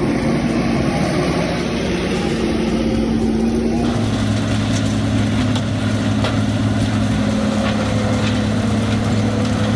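Heavy machinery engine running steadily and loudly. About four seconds in, the sound switches abruptly to a different steady engine hum with a deeper tone.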